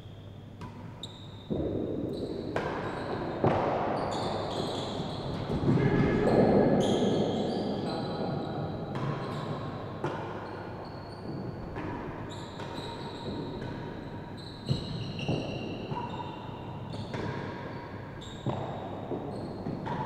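A real tennis rally: the solid ball knocked by racquets and bouncing off the court's floor and walls, a string of sharp irregular knocks that ring on in the large hall.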